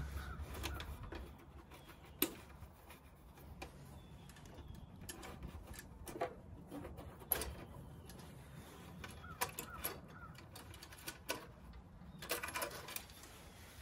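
Scattered light clicks and knocks of hand tools and metal parts being handled while unfastening a heat pump condenser's fan motor, with a short burst of quick rattling clicks near the end.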